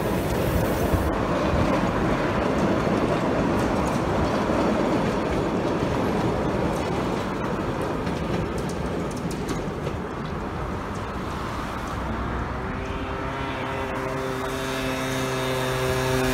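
Vintage electric tram and its trailer cars rolling past on the rails, a steady rumble of steel wheels on track that eases off slightly as the train draws away. Near the end a motor scooter's engine comes up, a steady hum getting louder as it approaches.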